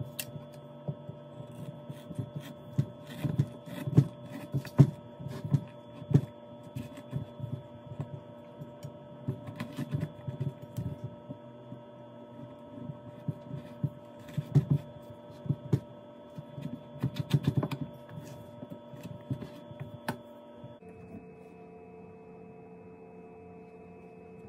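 Kitchen food preparation: irregular knocks, taps and clicks of vegetables and utensils being handled on a counter, over a steady electrical hum that shifts abruptly near the end.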